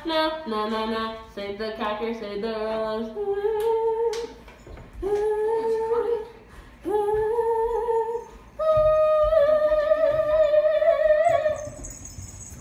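A girl's voice singing wordless held notes. It changes note quickly at first, then holds several longer notes with short breaks, ending on a higher note held for about three seconds.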